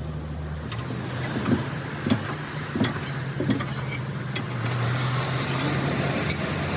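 An engine running steadily, with its pitch shifting slightly just under a second in, under scattered metal clinks and knocks.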